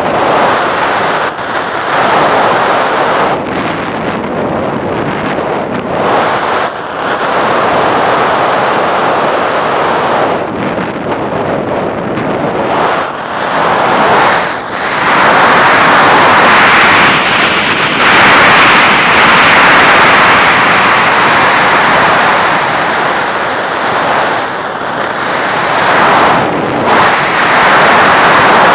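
Wind rushing over the microphone of a camera mounted on an FPV Raptor RC plane in flight, a loud steady rush that dips briefly several times and grows louder about halfway through.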